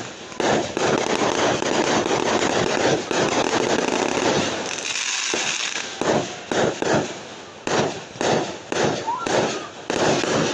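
Fireworks going off: a dense, crackling barrage for about the first five seconds, then a string of separate sharp bangs roughly every half second.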